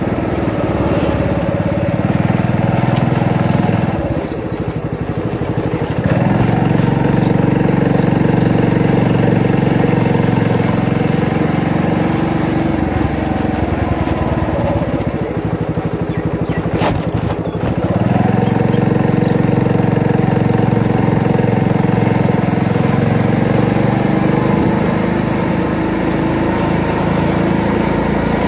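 Motorbike engine running under way, heard from the rider's seat. Its pitch drops and picks up again about four seconds in and again around seventeen seconds in, as the throttle is eased off and reopened.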